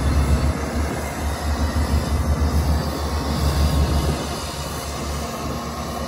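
Heavy diesel engine of earthmoving machinery running steadily with a deep low rumble, easing slightly in loudness over the last few seconds.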